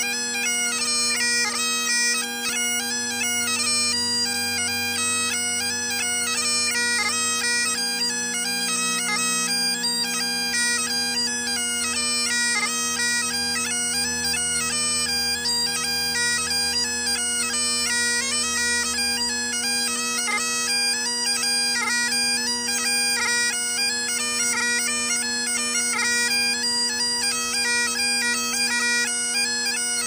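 Great Highland bagpipe playing a tune: the drones hold one steady chord beneath the chanter's quick-changing melody.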